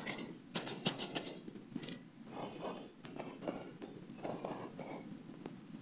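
Knife blade stabbing and scraping into dry, gravelly soil, a quick run of sharp scrapes for about two seconds. After that come softer rustles and scrapes as loose dirt and leaf litter are worked out of the hole by hand.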